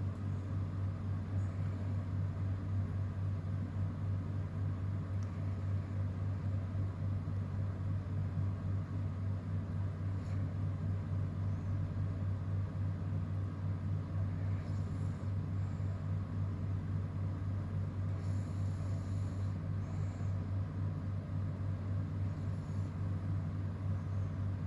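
Steady low hum, unchanging in level, with a few faint high ticks over it.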